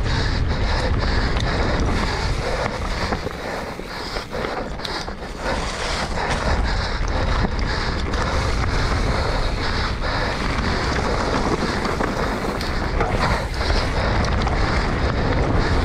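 Wind rushing over the microphone and tyres rolling on a dirt trail as a mountain bike descends at speed, with frequent sharp clicks and knocks from the bike rattling over rough ground. It eases off briefly a few seconds in, then picks up again.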